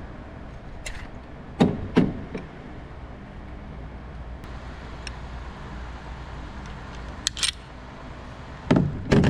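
Gunshots at a shooting range: two loud shots about half a second apart a little under two seconds in, then another pair near the end, with fainter pops and clicks between.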